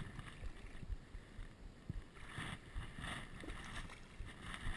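Faint water lapping and wind noise on the microphone, with a few soft, uneven swishes.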